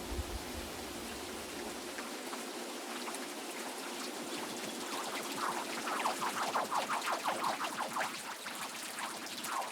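Steady rain-like water noise. About halfway through, a fast rhythmic series of short downward-sweeping chirps, about five a second, joins in and becomes the loudest sound.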